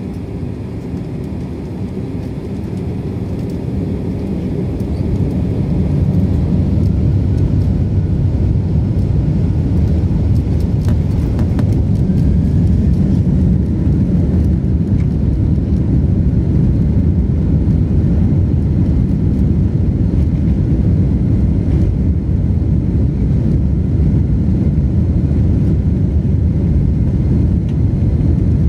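Boeing airliner's jet engines spooling up to takeoff thrust, heard from inside the cabin. The rumble grows louder over the first several seconds, then holds steady as the plane accelerates down the runway on its takeoff roll.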